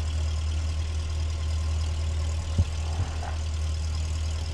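Light aircraft's piston engine idling on the ground, a steady low drone, with a couple of faint clicks a little past halfway.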